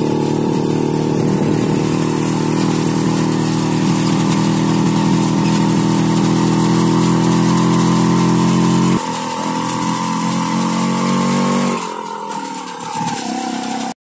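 Motorcycle engine running steadily under way, with wind noise over it. About nine seconds in, the deep engine sound drops away suddenly and something weaker and changed carries on.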